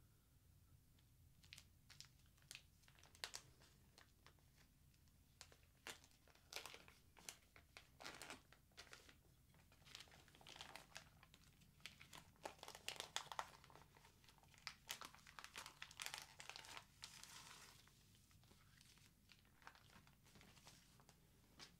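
Clear plastic vacuum-pack film crinkling and tearing as a knife slits it and hands peel it off a steak on a tray: a long run of quiet, irregular crackles, busiest in the middle.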